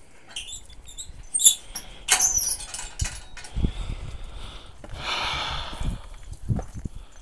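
White metal gate being opened and passed through: a sharp metallic clink of the latch about a second and a half in, then a high squeak from the hinges, followed by dull thuds and rustling of handling and steps.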